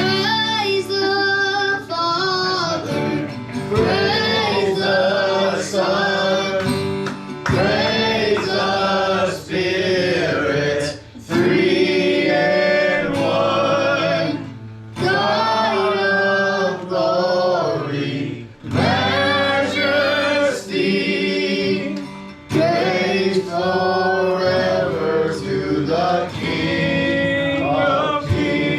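A worship song sung by voices over strummed acoustic guitar, in phrases of a few seconds each with short breaks between them.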